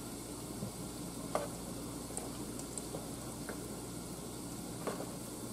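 A spoon stirring a thick meat and tomato pasta sauce in a pan on the stove, over a steady low sizzle from the hot sauce. A few light clicks of the spoon against the pan come through.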